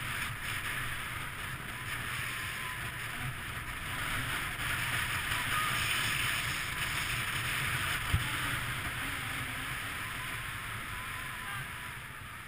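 Skis sliding over packed snow, a steady hiss, with wind rumbling on the microphone. A single sharp knock comes about two-thirds of the way through.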